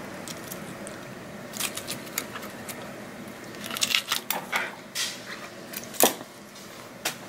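Short wet clicks and crackles as a lionfish's gills are torn and cut out by hand with a knife, in a few clusters, the sharpest about six seconds in.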